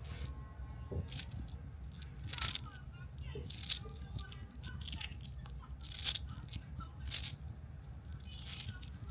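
Small magnetic balls rattling and clacking together as they are handled, with a sharp click roughly once a second.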